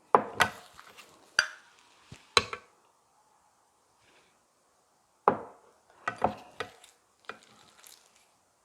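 Spoon knocking and scraping against a bowl while bibimbap is mixed: a series of sharp clinks and knocks in two bursts, with a pause of a few seconds between them.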